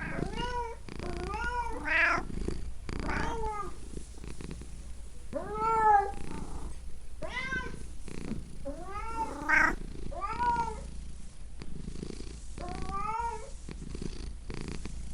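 Domestic cat meowing repeatedly, about one call every second or two, each call a rising-then-falling whine, over a steady low purr.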